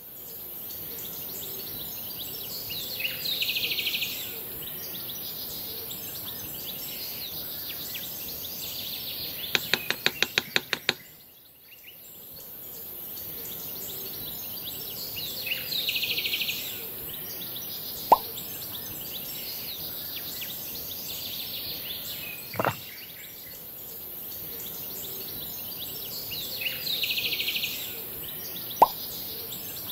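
Birdsong forest ambience with bird chirps coming back every ten seconds or so. About ten seconds in there is a quick run of about eight taps, and later three sharp single pops, the middle one with a low thump.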